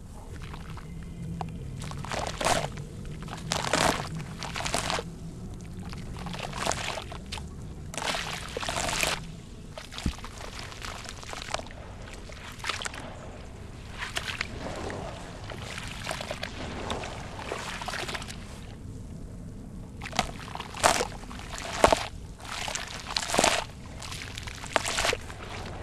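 Wet sand-cement crumbled by hand into a basin of water, with repeated irregular splashes and sloshes as handfuls of gritty sand pour back into the water. The loudest splashes come near the end.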